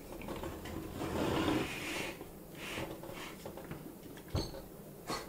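Hands handling a large plastic transforming toy figure: a rustling scrape followed by two short sharp clicks near the end.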